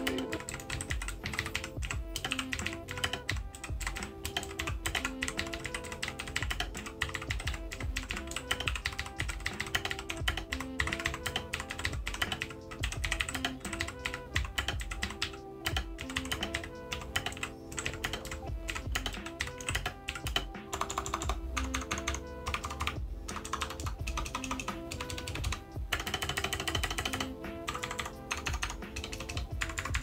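Typing on a Royal Kludge RK61 60% mechanical keyboard with blue switches: a steady stream of clicky keystrokes. Soft background music plays underneath.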